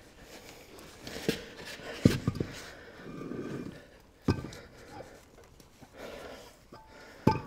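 A heavy engine cylinder head being handled and set down: about five separate knocks and clunks spread over several seconds, with a short rough scrape or strain in the middle.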